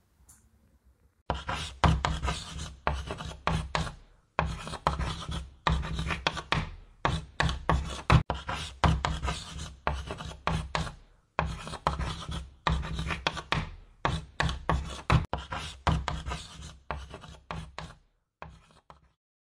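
Harsh rasping, scraping strokes in quick irregular runs with short pauses, over a steady low hum; it starts about a second in and stops shortly before the end.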